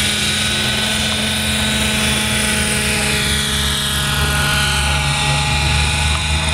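Radio-controlled scale model UH-1B Huey helicopter lifting off and climbing away, its engine and rotor running steadily. A high whine falls in pitch over the first few seconds.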